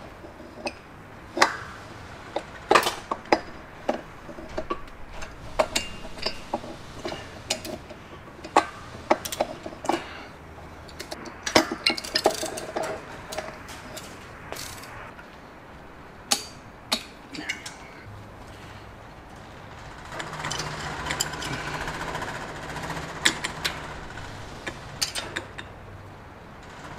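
Hand tools clicking and clinking against metal in irregular sharp knocks as a wrench works the cylinder hold-down nuts on a Franklin aircraft engine, with a few seconds of steadier rasping noise about twenty seconds in.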